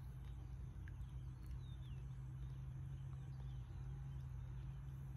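Faint outdoor ambience: a steady low hum, with a few faint bird chirps about one and a half seconds in.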